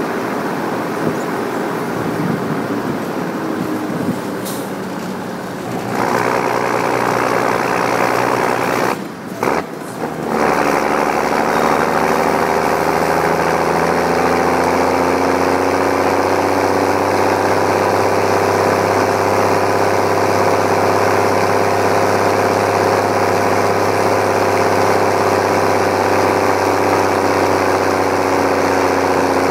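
Mercedes-Benz MB-trac 1100 turbo tractor's OM366A turbo-diesel six running under way, heard close to the exhaust stack. It gets louder about six seconds in and dips for about a second near the ten-second mark. It then pulls loud and steady, its pitch creeping up slightly before levelling off.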